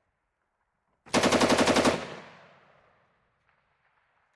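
One short burst from a 7.62 mm M240B belt-fed machine gun, about a dozen rounds in rapid even succession lasting roughly a second, starting about a second in. The shots echo and fade away over the following second.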